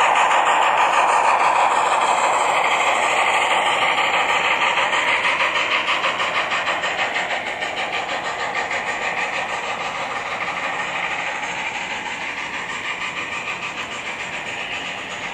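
HO-scale model train running past: the GMAM Garratt's Loksound 5 sound decoder plays steam locomotive sound through its speakers, with a fast, even beat and a steady hiss, over the rolling of the wagons and coaches on the track. It fades gradually as the locomotive draws away.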